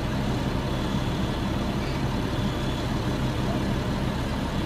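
Engine of an armoured military vehicle idling, a steady low hum with no change.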